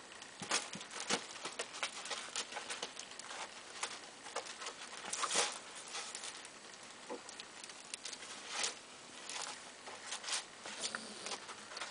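Kittens' paws digging and scrabbling in granular cat litter in a plastic litter box: irregular scratchy rustles and ticks of scattering granules, with a louder scrabble about five seconds in.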